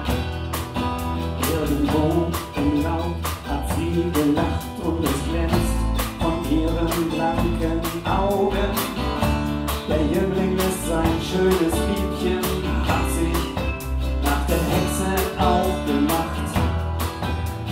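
Live band playing an instrumental intro: strummed acoustic guitar, electric bass and a drum kit keeping a steady beat, with a melody line over them.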